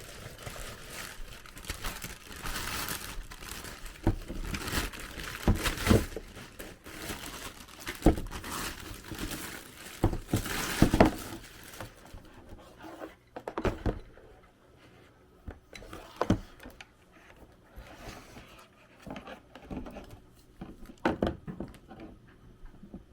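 Plastic and cardboard packaging crinkling and rustling as a boxed CPU liquid cooler and its accessories are handled, with several knocks in the first half. About halfway through the rustling dies down, leaving only occasional light taps.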